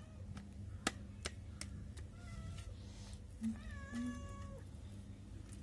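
A cat meowing twice: a short meow about two seconds in, then a longer one about four seconds in that drops in pitch at its end. A few sharp clicks sound in the first couple of seconds.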